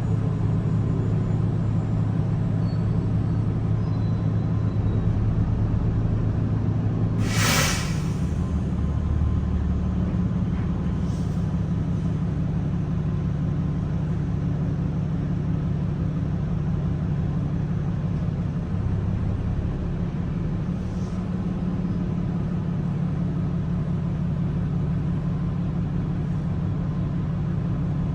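Cabin sound of a Gillig hybrid bus underway: the steady low drone of its Cummins B6.7 diesel and BAE hybrid drive. About seven seconds in comes one loud, short hiss of compressed air from the bus's air system, with two fainter hisses later.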